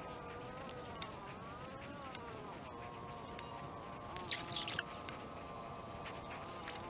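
A flying insect buzzing close by, its hum wavering slowly in pitch, over faint scattered ticks, with a brief crackling burst about four seconds in.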